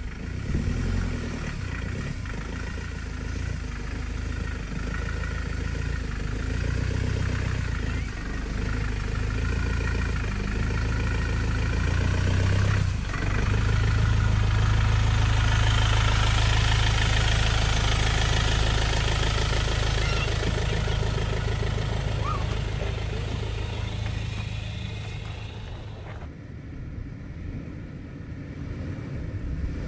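4x4 pickup's engine running at low revs as the vehicle crawls over, heard from beneath it; it grows louder and is loudest about halfway through as the vehicle passes directly overhead, then eases off.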